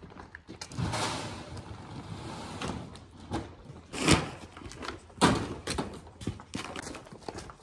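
Seed being loaded into a row-crop planter's hoppers: a rushing pour for about two seconds, then two sharp bangs about a second apart and scattered smaller knocks from lids and bags.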